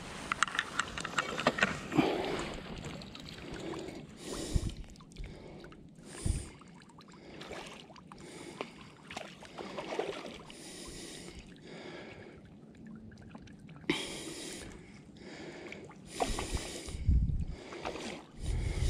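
Hooked fish splashing at the surface while being played on a fly rod, in short separate bursts. There is a quick run of clicks in the first couple of seconds and low bumps near the end.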